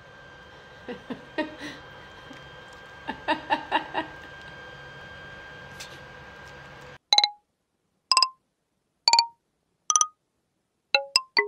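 A sound effect of short, bright pitched beeps, each dying away quickly in dead silence: four spaced about a second apart, then a fast run of about seven. Before them, a quieter recording with room hiss and a few brief soft sounds.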